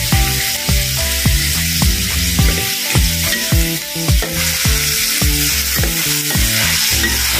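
Onion flower stalks and minced pork sizzling as they are stir-fried in a metal wok and turned with a spatula, under background music with a steady beat.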